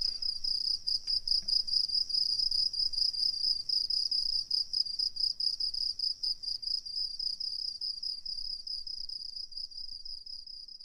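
Cricket chirping sound effect: a steady, high, rapidly pulsing trill that stops abruptly at the very end.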